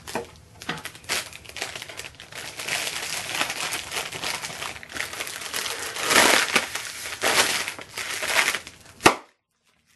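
Clear plastic wrapping crinkling and rustling as it is handled and squeezed, then near the end a single sharp, loud pop of an inflated plastic bag bursting.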